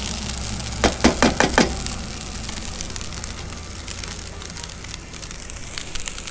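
Shredded hash-brown potatoes sizzling in a skillet on a propane camp stove, a steady hiss. About a second in, a metal spatula knocks against the pan in a quick run of about five sharp knocks.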